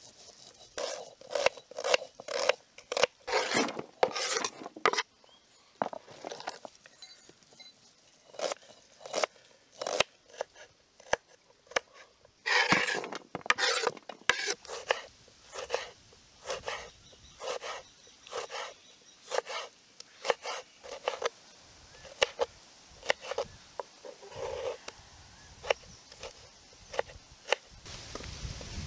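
Kitchen knife chopping onions on a wooden cutting board: irregular sharp chops, a few quick runs of strokes and some short pauses. Near the end a grinding stone starts rubbing over turmeric on a stone slab.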